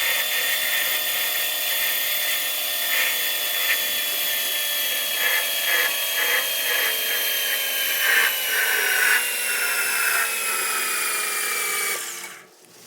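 Lathe running with a steady high whine that slowly falls in pitch, broken by short noisy bursts, and cutting off abruptly near the end.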